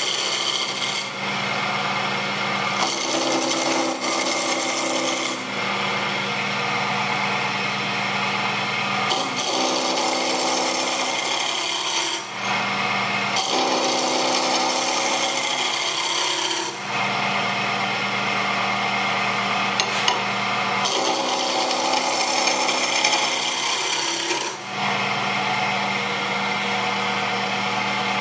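Wood lathe running with a steady motor hum while a homemade carbide-tipped turning tool cuts the spinning wood stock: a rasping, scraping cut that comes and goes in several passes of a few seconds each.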